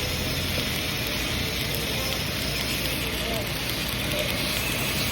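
Welding arc on carbon-steel pipe crackling and sizzling steadily at an even level.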